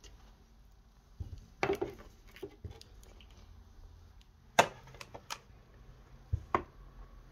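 Makeup products and storage containers being handled and set down: a scatter of short knocks and clatters, about nine in all, the loudest about four and a half seconds in.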